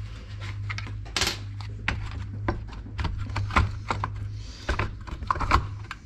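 Small metal parts, the washers and bolts for the brush cutter's recoil starter, clicking and clinking as they are handled: a scattered run of light clicks over a steady low hum.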